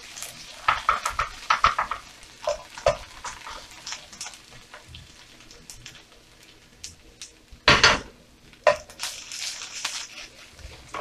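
Plastic slotted spoon scraping and clattering against a stainless steel frying pan in irregular strokes as diced vegetables and tomato paste are stirred, over a faint sizzle of frying. There is a quieter stretch in the middle and one louder clatter about two-thirds of the way through.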